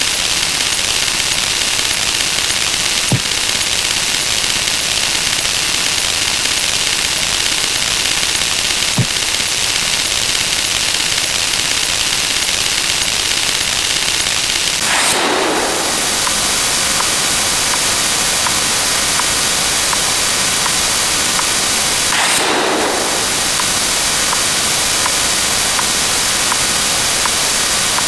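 A dense mix of many sound effects played on top of one another, blurring into a loud, steady hiss with fast crackling. Two whooshing sweeps pass through it, about seven seconds apart.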